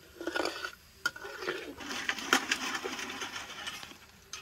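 Sliced raw bananas being scooped by hand out of a metal pot: an irregular rustle and clatter of the slices with small clinks against the metal, starting about a second in and dying away near the end.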